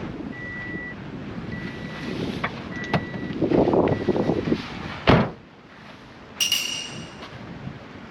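Wind rumbling on the microphone with scattered knocks, faint short high beeps repeating in the first half, and one heavy thump about five seconds in.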